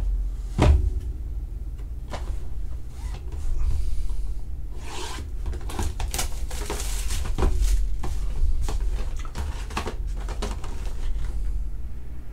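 Cardboard trading-card box and cards handled by hand: a sharp knock under a second in, then a run of small clicks with sliding, scraping and rustling of cardboard, the busiest from about five to eight seconds in.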